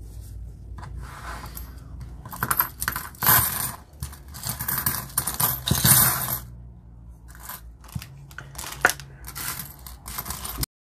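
Loose coins, mostly copper pennies with some silver-coloured coins, emptied out of small coin purses onto a tabletop and spread apart by hand. There are two spells of dense clattering, then scattered single clinks. The sound cuts off suddenly near the end.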